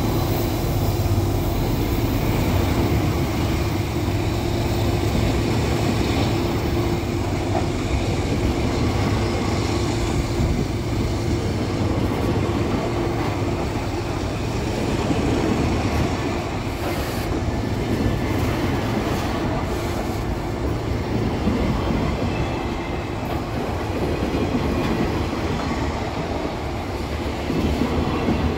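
Loaded freight hopper wagons rolling past at close range: a steady rumble and clatter of steel wheels on the rails. A low steady hum fades out about halfway through.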